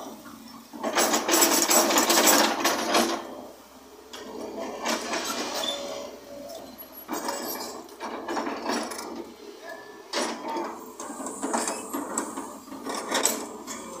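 JCB excavator bucket scraping through and dropping broken stone and concrete rubble: rough clattering and grinding in bursts, loudest about one to three seconds in and again near ten and thirteen seconds.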